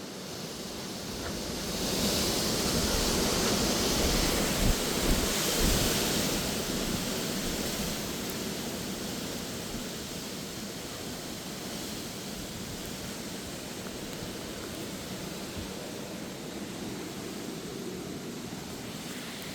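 Strong gusty wind rushing. A gust builds about two seconds in, buffets the microphone with a couple of low thumps around five seconds, then eases back to a steady rush.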